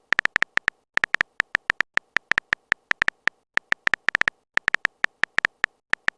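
Phone keyboard typing clicks as a sound effect: a rapid, irregular string of short, high ticks, several a second.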